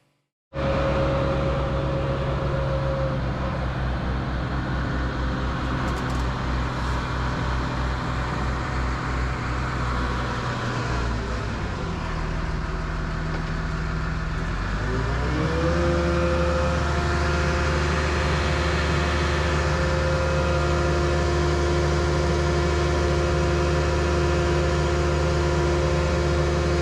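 Diesel engine of a Terex Demag AC200 all-terrain crane running steadily. About halfway through, its revs rise smoothly to a higher steady speed.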